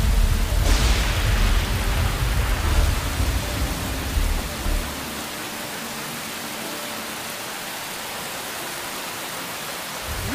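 Steady hiss like rain, with a deep rumble under it that drops away about five seconds in, leaving only the hiss.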